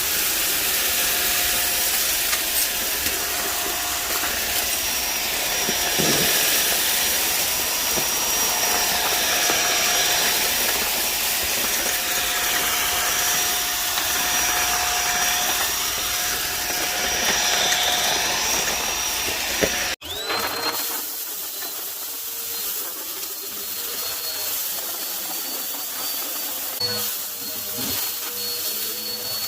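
Vacuum cleaner motor running steadily with a high whine over its airflow rush. About two-thirds of the way through the sound breaks off abruptly and a quieter vacuum sound takes over, its whine rising briefly and then holding a steady pitch.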